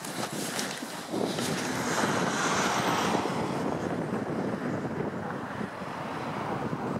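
Footsteps crunching through deep snow, then a steady rushing noise that swells and fades a couple of seconds in.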